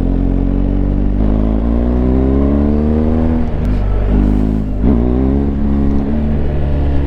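BMW GS Adventure's boxer-twin engine pulling under acceleration. The pitch climbs, breaks and drops a little past the middle at a gear change, then climbs again and levels off near the end.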